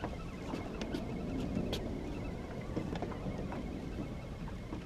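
Steady wind and water noise around a small fishing boat on open sea, with a few faint clicks.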